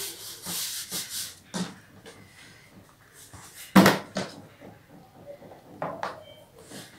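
Handling noises of fabric and a cardboard box being worked by hand: rubbing in the first second or so, then a single sharp knock about four seconds in, with a few light clicks after.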